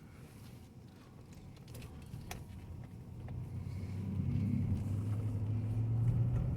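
Cabin sound of a 2019 Chevy Tahoe's 5.3-litre V8 and drivetrain running: a low, steady hum that grows louder over the second half. A few faint clicks come in the first half.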